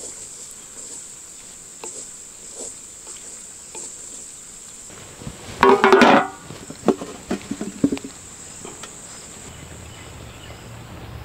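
Insects chirring steadily at a high pitch. About halfway through comes a short loud sound, followed by a few smaller knocks.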